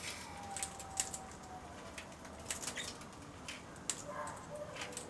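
Australian king parrots at close range: scattered sharp clicks and taps, with a soft, long whistle starting about half a second in and sliding slightly lower, and shorter whistled notes near the end.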